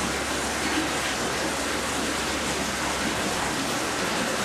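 Steady, even rushing noise, with no distinct events or calls standing out.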